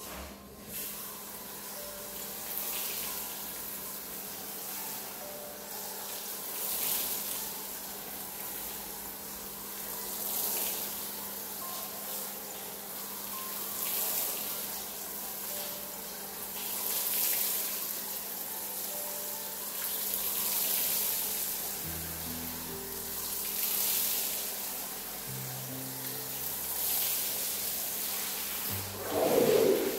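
Pressure-washer spray hissing onto a rug, swelling and easing with each sweep of the lance about every three to four seconds. A brief louder thud comes near the end.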